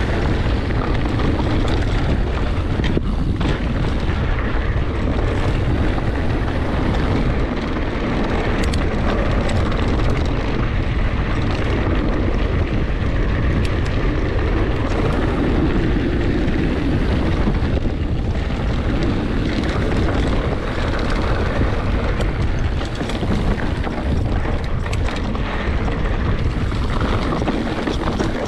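Wind buffeting the microphone of an action camera on a mountain bike riding down a rocky dirt track, a steady low rumble mixed with the rattle and crunch of the tyres and bike over loose stones.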